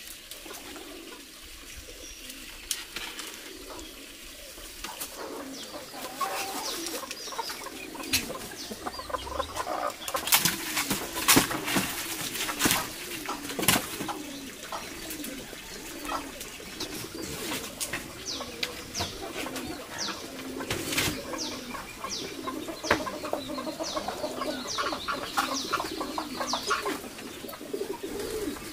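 Birds calling, with repeated low cooing calls and short higher chirps, over scattered sharp clicks and knocks.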